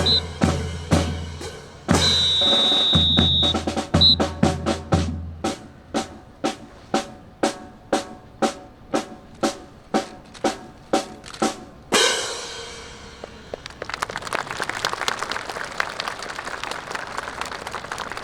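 A drill whistle blows long blasts, each with a short pip, over a bass drum beating about twice a second. A drum then taps a steady marching cadence at about two beats a second, ending on a loud final hit. Applause follows near the end.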